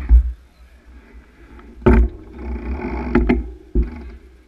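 Low rumble and several sharp knocks of wind and handling noise on a cyclist's camera microphone, with a rougher noisy stretch between about two and three and a half seconds.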